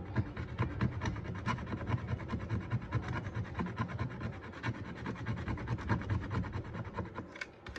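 Metal scraping: the painted metal body of an amplifier is scratched down to bare metal with many quick, irregular strokes. The paint is being scraped off so an earth wire can be soldered on to cure the amplifier's hum.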